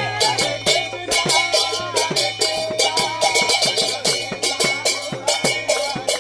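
Kirtan percussion: a mridanga (khol) drum and brass kartal hand cymbals play a fast, steady rhythm, with hand clapping. The cymbals ring on continuously under the drum strokes, and the drum's low strokes bend down in pitch.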